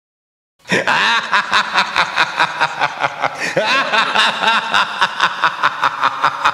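Laughter, a fast run of short pulses about four a second, starting suddenly about half a second in after a moment of silence.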